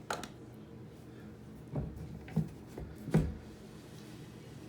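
A few short, soft knocks and bumps from handling, as the camera and tools are set down and repositioned, over a faint low hum.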